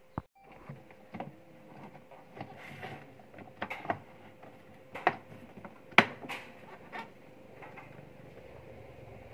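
Scattered knocks and clicks of a rice cooker's metal outer body being handled and fitted back onto its base, the loudest knock about six seconds in, over a faint steady hum.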